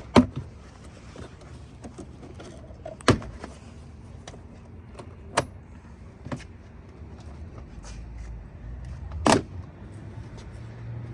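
Plastic retaining clips of a BMW X1 rear door trim panel popping loose as the panel is pried off: about five sharp snaps, the loudest near the end, with faint handling noise between.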